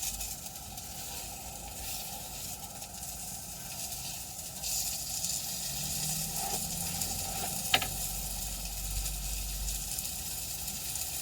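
A steady sizzling hiss, with a single sharp click about three-quarters of the way through.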